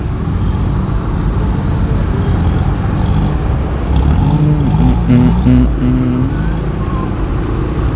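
Motorcycle riding slowly through jammed road traffic: a steady low rumble of engines and road noise with wind on the helmet microphone. A short pitched sound breaks in around the middle.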